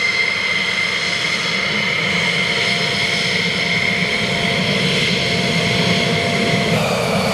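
F-16C Block 52's Pratt & Whitney F100-PW-229 turbofan at taxi power as the jet rolls past: a steady high-pitched whine over a low rumble, shifting slightly near the end.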